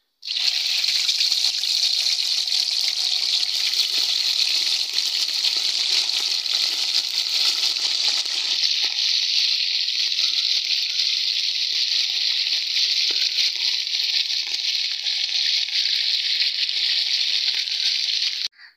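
Fish pieces sizzling steadily as they shallow-fry in hot ghee. The sizzle cuts off suddenly near the end.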